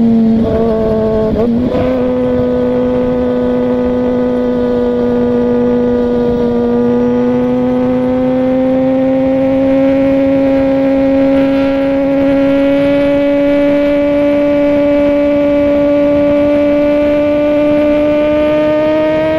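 Suzuki GSX-R1000's inline-four engine running steadily under light throttle. The revs waver briefly about a second in, then the pitch rises slowly and evenly as the bike gathers speed.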